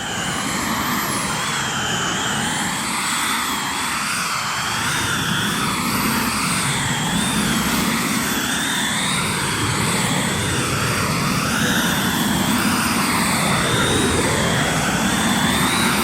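Synthetic sci-fi vehicle engine effect: a steady jet-like hum with a sweeping, swirling whoosh that rises and falls about every two seconds, running without a break.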